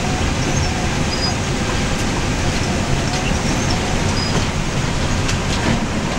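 Inside a vehicle's cab driving on a wet gravel road: a steady low rumble of engine and tyres on gravel, with a few faint ticks.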